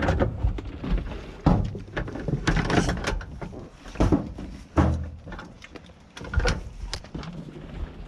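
Goats jostling right against the microphone in a small wooden pen: irregular knocks, thuds and rustling as their heads and bodies bump the boards and the camera, with a few heavier thuds among them.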